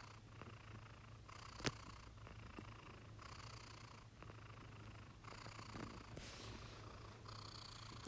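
Sleeping black-and-white cat snoring faintly, a purr-like rasp repeating about once a second with each breath. A single sharp click about two seconds in.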